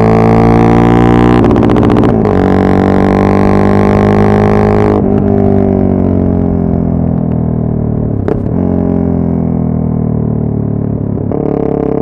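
Yamaha MT-03's 660 cc single-cylinder engine and exhaust under way, its revs climbing slowly in gear. About five seconds in the throttle closes and the note falls slowly on the overrun, with a single sharp exhaust pop about eight seconds in. The note picks up again near the end.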